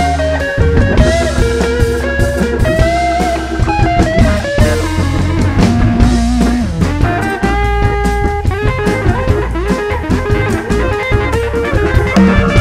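Live blues-funk band playing an instrumental passage: a semi-hollow electric guitar plays a lead line with bent, gliding notes over drum kit and bass.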